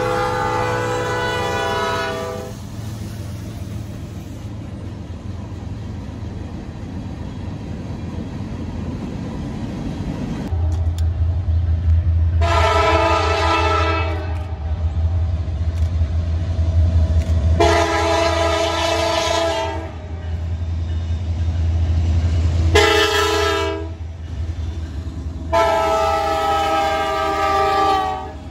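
A passing Norfolk Southern diesel locomotive's chord horn sounds for about two seconds, followed by the rumble of the passing train. From about ten seconds in, an approaching train led by a Canadian Pacific diesel locomotive drones low and blows its horn in the grade-crossing pattern, long, long, short, long, warning at the crossing.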